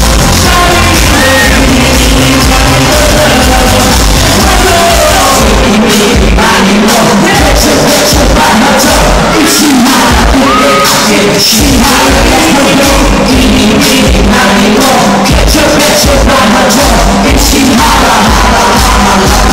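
Loud music with singing, and shouts and yells over it.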